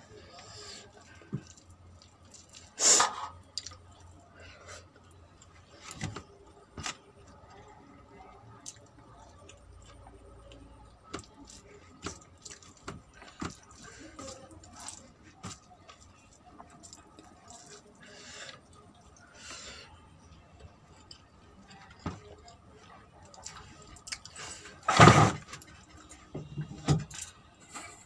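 Someone eating rice by hand: fingers squishing and mixing rice with curry on a plastic plate, with wet mouth clicks and smacks while chewing. Two louder brief rushes of noise stand out, about three seconds in and near the end.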